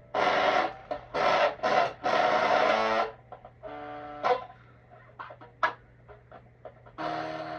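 Electric guitar played through a small, poorly working practice amp with distortion on. Loud strummed chords come in short bursts for about three seconds, then quieter single notes and plucks, then another chord near the end. A steady low hum sits underneath throughout.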